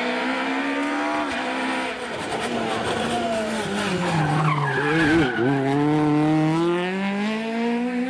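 Peugeot 208 rally car at full stage pace: its engine note falls as the driver lifts and brakes for a bend about halfway through, with a short high squeal there, then climbs steadily as it accelerates away.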